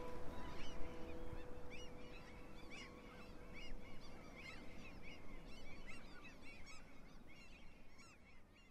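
Many birds chirping and calling together in a busy chorus of short calls, with the tail of the background music fading out in the first second or so. The chorus grows fainter near the end.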